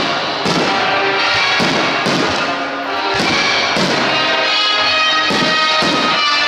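Loud background music of a music-synchronised fireworks show, with repeated thuds of firework shells bursting, coming in short runs about half a second apart.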